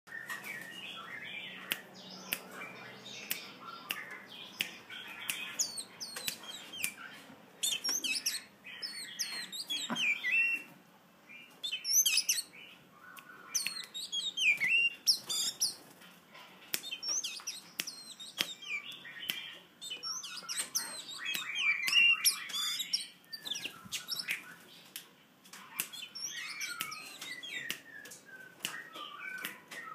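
Oriental magpie-robin singing: bursts of varied whistled notes and chirps that slide up and down in pitch, with short pauses between phrases.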